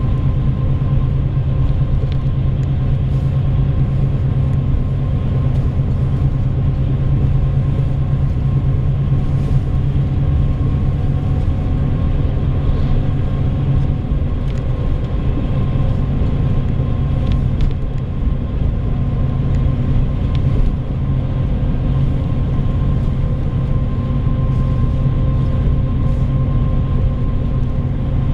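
Interior of a route bus underway: a steady low drone of the engine and tyre noise heard inside the passenger cabin, with a faint steady whine above it and a few light rattles.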